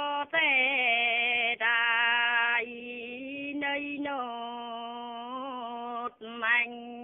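An elderly woman singing a Dao folk song, unaccompanied, in long held notes that slide slowly in pitch, with short breaks between phrases; the voice drops softer about halfway through.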